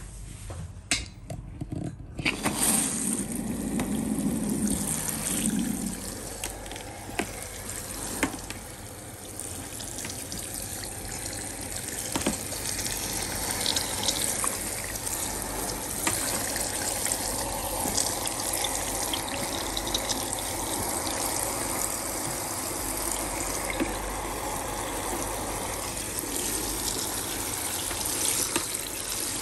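Water running into the tub of a portable folding washing machine, filling it over the detergent and clothes. A few clicks come first, then the water starts about two seconds in and runs steadily.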